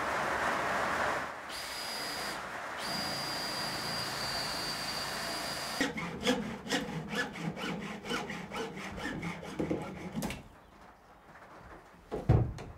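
A steady rush of noise for the first second, then a cordless drill running with a high whine that stops briefly and starts again. A hacksaw then cuts through PVC pipe in quick, even rasping strokes for about four seconds, and there is a single thump near the end.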